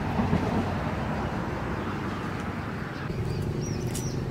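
Outdoor background of a steady low rumble, with a few short high bird chirps near the end and a single sharp click about four seconds in.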